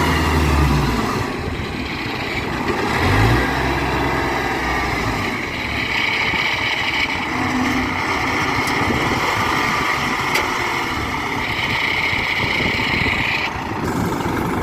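Kubota DC-93 Extra combine harvester running in the field: a steady, dense mechanical noise of its diesel engine and working machinery, with a deep engine hum that drops away about a second in.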